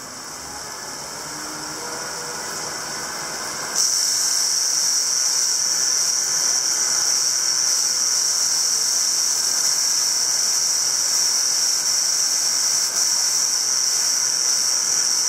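CycleOps SuperMagneto Pro bike trainer running in its Road resistance mode, gradually getting louder. About four seconds in, a loud, steady, high-pitched grinding noise starts suddenly and keeps going: the intermittent fault noise from the trainer.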